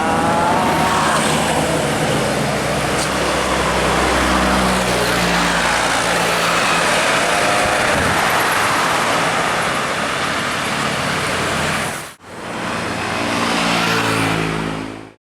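A large bus going past close by at speed, its engine and tyres making a loud, steady rush of noise. The sound cuts off suddenly about 12 seconds in and another passing vehicle follows.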